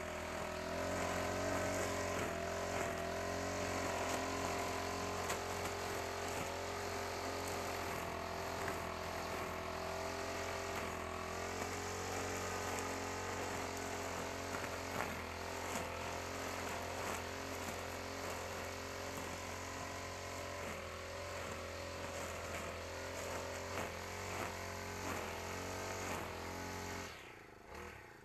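Honda GX35 four-stroke brush cutter engine running steadily at working speed while cutting grass, its pitch wavering slightly. The sound drops away suddenly near the end.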